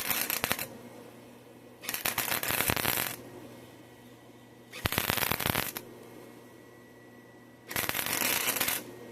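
Electric welding arc crackling in four short spot-weld bursts of about a second each, filling burned-through holes in thin metal pipe on a rake handle.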